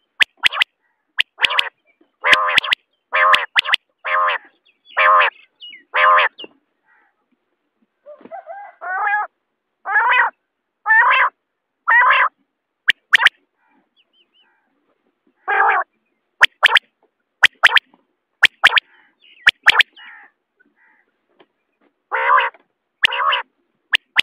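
Common quail giving single short call notes, one after another in runs with brief pauses of a second or two. Sharp clicks fall between the calls.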